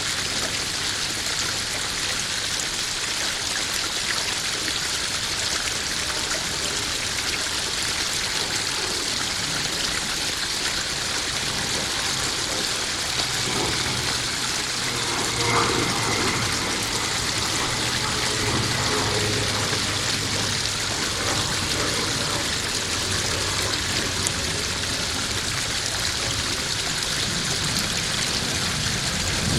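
Small garden waterfall splashing steadily into a koi pond, an even rush of running water.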